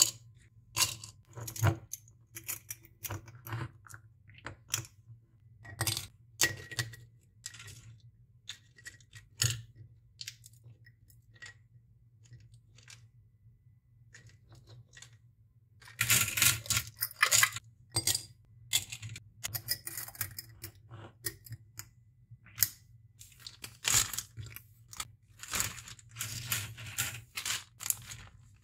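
Crisp dried orange slices dropped and pressed into a glass jar: scattered light clicks and taps against the glass, with a dense burst of dry crackling about halfway through and more clustered clicks near the end.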